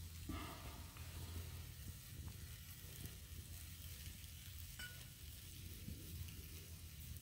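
Steak sizzling faintly on a grate over a campfire, over a steady low rumble, with a couple of light clicks.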